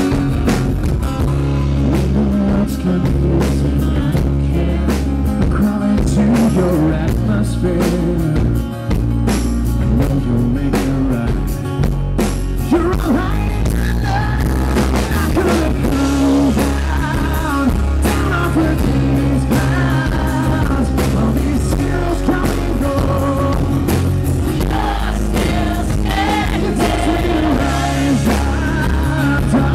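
Live acoustic rock performance over a stage PA: acoustic guitars strumming, with a male lead vocal singing from about halfway through.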